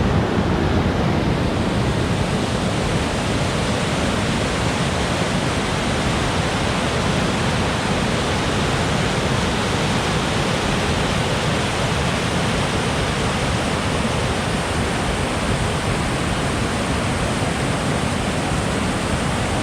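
Waterfall pouring over natural rock: a steady, unbroken rush of water.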